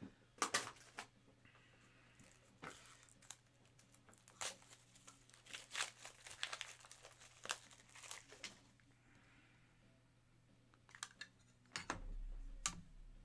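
Faint crinkling and rustling of trading-card pack wrappers and cards being handled, with scattered short clicks.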